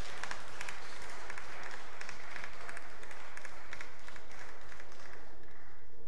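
A small audience applauding with many quick hand claps, stopping shortly before the end.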